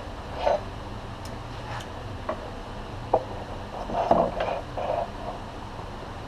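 Scattered metal clinks and taps of short steel bolts being handled and clamped in the vise of a horizontal metal-cutting bandsaw, with a sharp click about three seconds in and a louder cluster of clanks about a second later.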